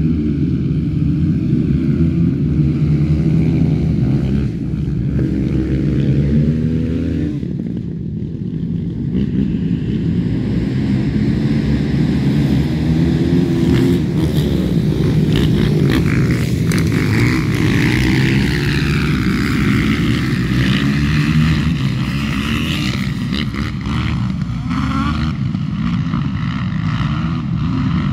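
A pack of racing quads, mostly 450s, running hard around a grass track. The engines rev up and back off continuously, their pitch climbing and dropping as the riders accelerate out of bends and shut off into them.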